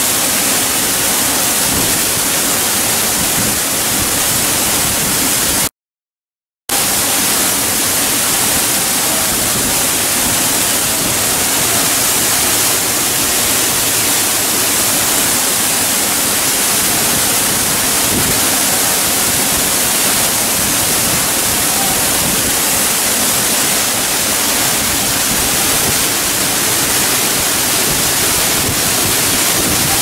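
Loud, steady rush of a large waterfall, Teerathgarh Falls on the Kanger River, pouring into its plunge pool at close range. The sound cuts out completely for about a second, some six seconds in, then resumes unchanged.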